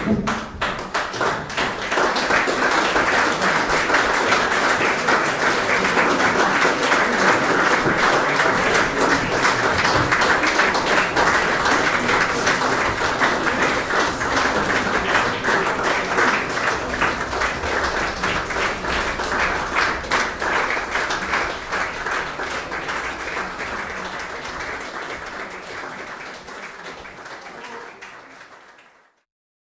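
Applause from a small house-concert audience: dense, steady clapping that fades away over the last several seconds and cuts off just before the end.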